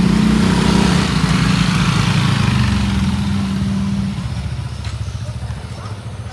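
Two motor scooters riding past close by, their small engines running steadily, the sound fading after about four seconds as they move away.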